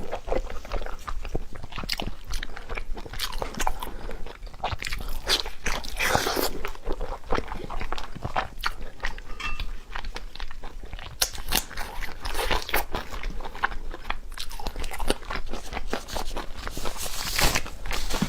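Close-miked eating: a person biting into and chewing crunchy food, with many short sharp crunches and a few longer noisier stretches.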